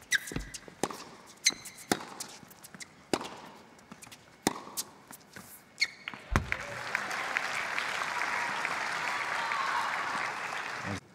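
Tennis rally on an indoor hard court: racket strikes on the ball about every one and a half seconds with bounces between, ending about six seconds in. Then the crowd applauds steadily for several seconds, cut off suddenly near the end.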